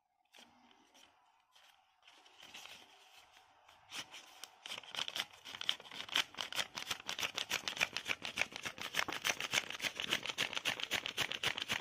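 Sheet of paper being folded and creased by hand: faint crinkles at first, then from about four seconds a fast run of crisp crackles and clicks, several a second, getting louder.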